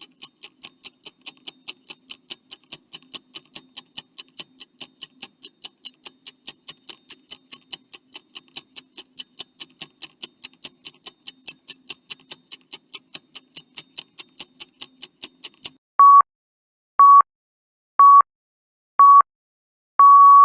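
Countdown timer sound effect: fast, even clock ticks, about three a second, which stop about 16 seconds in. Then four short, loud electronic beeps follow a second apart, and a longer final beep starts near the end, marking the last seconds and time up.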